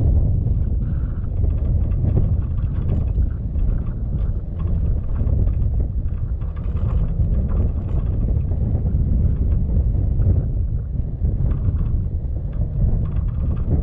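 A vehicle driving along a dirt road, its tyres rumbling on the surface, with wind buffeting the microphone in a steady, uneven low roar.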